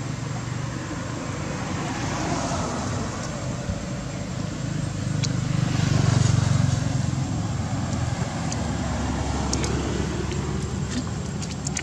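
Low rumble of a passing motor vehicle, swelling to its loudest about six seconds in and then fading, with a few faint clicks near the end.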